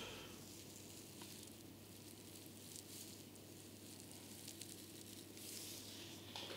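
Near silence: a faint hiss with a steady low hum, and a soft swish near the end.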